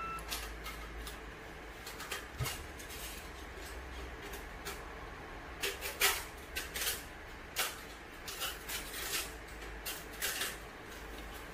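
A sheet of paper slid and tugged between a 3D printer's nozzle and its glass bed to check the gap while levelling the bed by hand. It gives a series of short scratchy rustles and ticks, busiest in the second half, with one knock about two seconds in and a low hum underneath.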